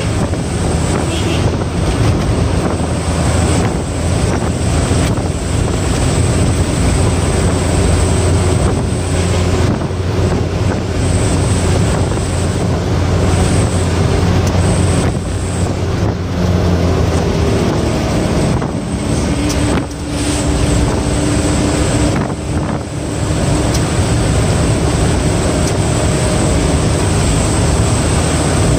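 Truck engine running hard at speed, heard from inside the cab, with a steady low drone mixed with wind and road rush. The level dips briefly about twenty seconds in and again a few seconds later.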